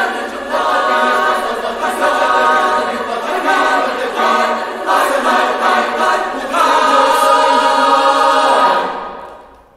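Mixed youth choir of girls and boys singing a cappella, ending on a long held chord that fades away near the end.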